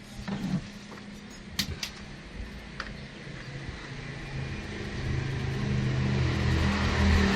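A few light metallic clicks from small horn parts being handled, then a steady hiss with a low hum that grows louder over the second half.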